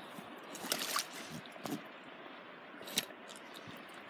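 Shallow stream trickling over rocks, with a few short splashes and knocks as a trout is netted in a wooden landing net, the sharpest about three seconds in.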